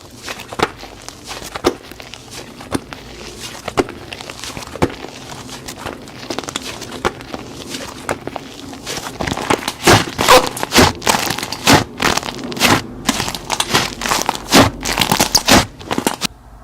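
Slime being pressed and squished by hand, giving crackling clicks and pops. The pops come about once a second at first, then grow louder and come in quick succession from about halfway through.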